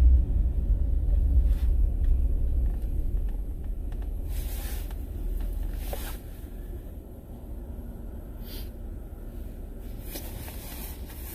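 Low rumble of a moving car, heard from inside the cabin. It eases off over the first several seconds, with a few brief faint scuffs over it.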